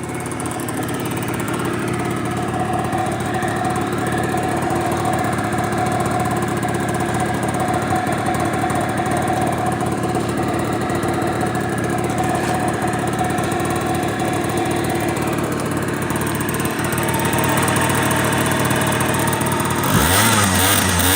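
Honda Live Dio AF34 scooter's single-cylinder two-stroke engine running steadily at idle. The listing says the engine makes an abnormal noise. About 20 seconds in, the engine speed swings briefly.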